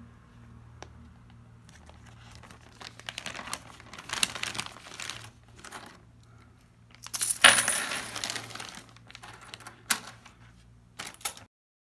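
Coins clinking and rattling against each other in a few bursts of clatter, the loudest about seven and a half seconds in with a bright metallic ring, then a few single clinks before the sound stops abruptly.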